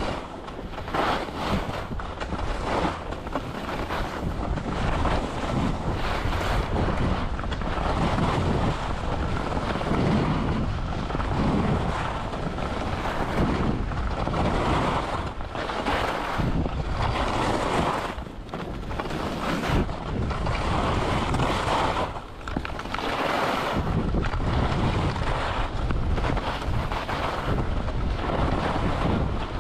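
Wind buffeting the microphone while skiing downhill, with the hiss and scrape of skis on snow swelling and easing through the turns.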